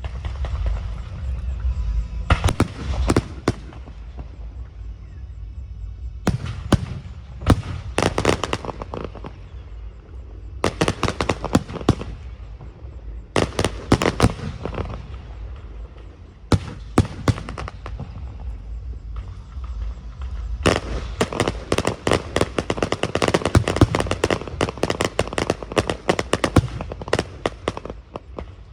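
Aerial fireworks bursting in volleys of rapid crackling bangs, several short clusters a few seconds apart, then a long dense barrage from about two-thirds of the way in to near the end.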